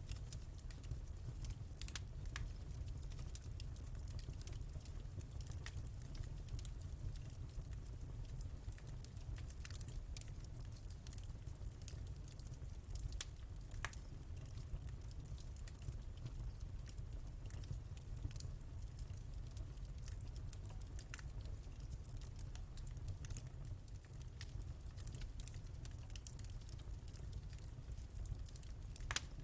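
Wood fire burning in a fireplace: a steady low rumble of the flames with scattered sharp crackles and pops, roughly one or two a second.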